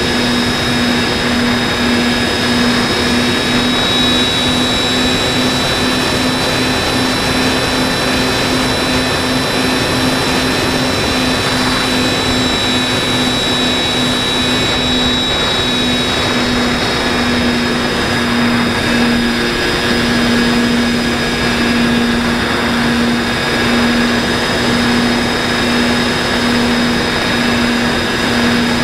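Motor and propeller of an FPV model aircraft, picked up by its onboard camera, running steadily at cruise over a wash of rushing air; a pulsing low hum and a thin high whine hold steady throughout.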